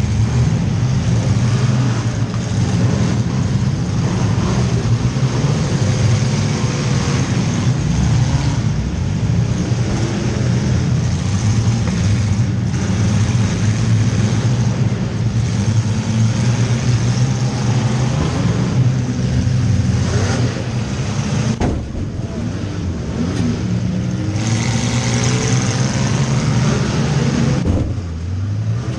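A compact demolition derby car's engine running and revving, heard from inside the cabin, with the pitch rising and falling as it is driven. A single sharp knock comes about two-thirds of the way through.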